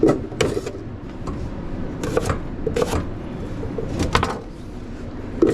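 Irregular knocks and clatter of kitchen utensils and containers being handled, about five sharp hits in a few seconds, over a steady low kitchen background hum.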